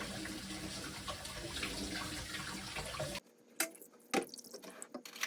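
Water running steadily from a tap into a sink, stopping abruptly about three seconds in; a few light clicks and knocks follow.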